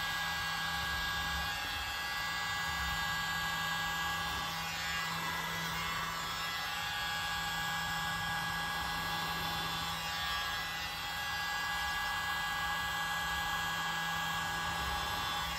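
Handheld electric mini blower running steadily: a small motor's whine with several steady tones over the rush of air.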